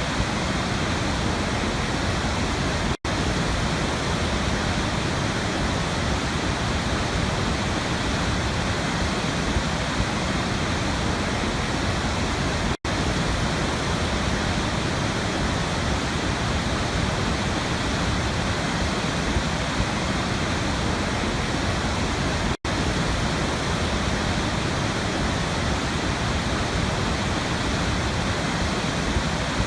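Waterfall: a steady, dense rush of falling water. The sound cuts out for an instant three times, roughly every ten seconds.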